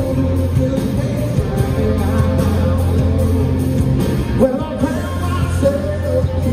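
Live country-rock band playing at full volume: electric guitars, bass and drums, with a man singing over them.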